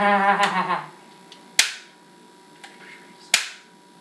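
A laughing voice trails off within the first second. Then come two sharp, loud snaps, each with a brief ringing tail, about two seconds apart, with a few faint ticks between them.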